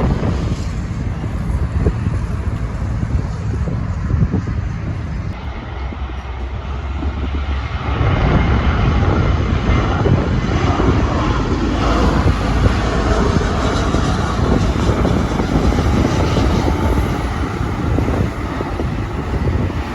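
Jet airliner engines, a rumble that swells about eight seconds in and stays loud, with wind buffeting the microphone.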